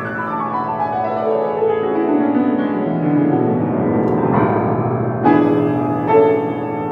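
Solo piano playing: a run of notes falling in pitch over the first three seconds, then a few struck chords that ring on.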